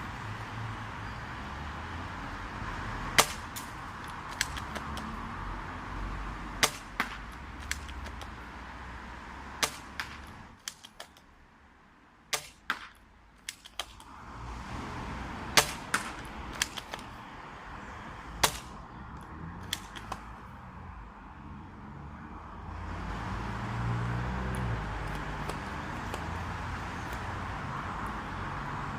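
ZM51 spring-powered airsoft sniper rifle being fired and its bolt worked: a series of sharp snaps and clicks, several seconds apart, over steady background noise.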